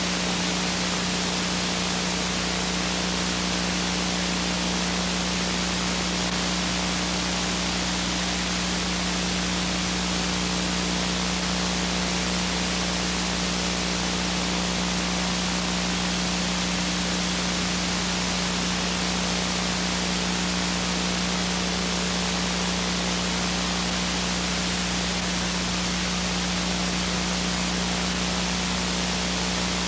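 Steady hiss with a constant low hum underneath: signal noise from a blank stretch of videotape with no programme recorded.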